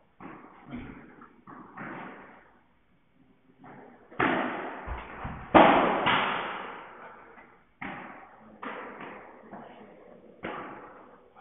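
Padel rally: the ball struck by rackets and bouncing off the court and glass walls, a series of sharp, irregularly spaced hits, each echoing in the hall. The loudest hits come about halfway through.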